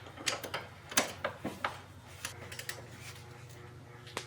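Wrench clicking as engine mount bolts are tightened to torque spec: a scattering of faint, irregular metallic clicks, with one sharper click near the end, over a steady low hum.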